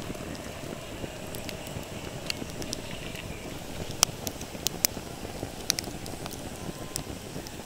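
Open wood fire crackling: a steady rush of flame with scattered sharp pops, the loudest about four seconds in.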